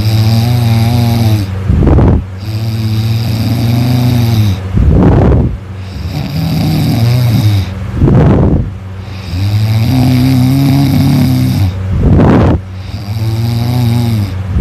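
A sleeping person snoring loudly in a regular rhythm: low, droning snores of a second or two each, alternating with short, rough rushes of breath, about every three seconds.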